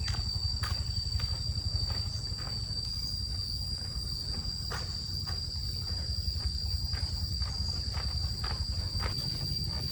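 Insects calling in a steady, unbroken high-pitched drone, with scattered short clicks or rustles and a low rumble underneath.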